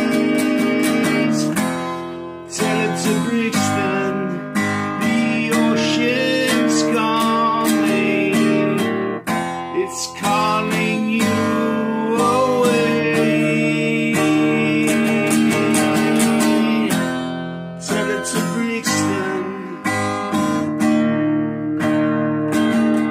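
Strummed acoustic guitar in an instrumental passage of a folk-rock song, with a melody line sliding and bending in pitch over the chords.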